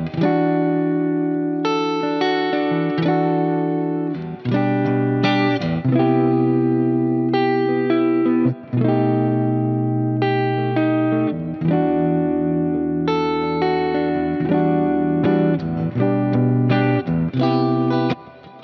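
PRS SE Custom 24-08 electric guitar playing sustained chords and notes over a backing track, with brief breaks between phrases about four and nine seconds in.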